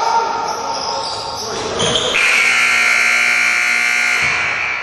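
Gym scoreboard buzzer sounding one steady, loud blast of about two seconds, starting a little over two seconds in and cutting off abruptly. Before it comes echoing gym noise with ball bounces.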